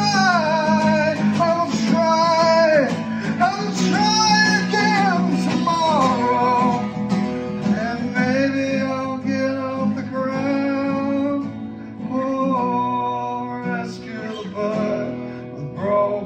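Live acoustic guitar played under a gliding, sustained melody line with no words, an instrumental break in a folk song.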